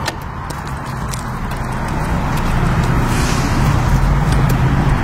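Car engine and road noise heard from inside the moving car, a steady low hum that grows louder over the first few seconds.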